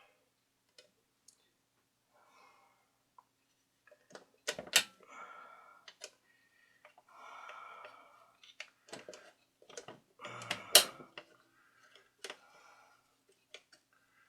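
Hands working on a record player's mechanism on a workbench: scattered clicks and knocks of small parts and tools, two sharper knocks about five and eleven seconds in, and several short scraping or rubbing sounds of about a second each.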